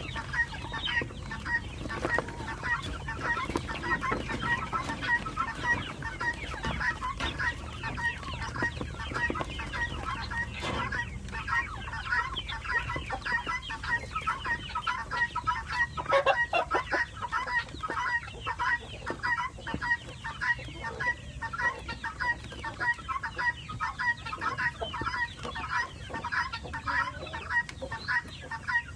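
A flock of chickens clucking continuously, many short calls overlapping one another.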